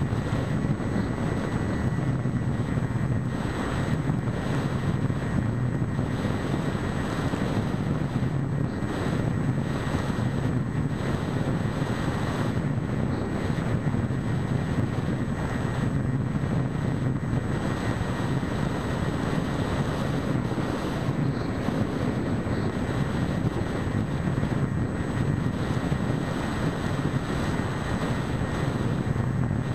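The EasyStar 2 RC plane's 1400kv brushless electric motor spinning a 7x6 propeller at a steady cruise, mixed with wind rush on the onboard camera's microphone. A faint, thin high whine runs under it.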